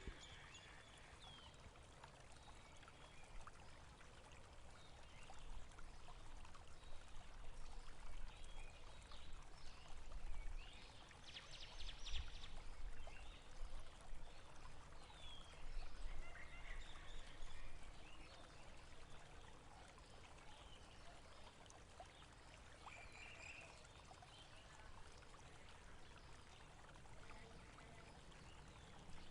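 Faint running water, trickling steadily, with a few short bird chirps over it.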